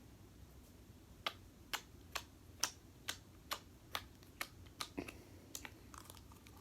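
A series of about a dozen sharp, crisp taps, about two a second, starting a little over a second in, in ASMR-style slime play.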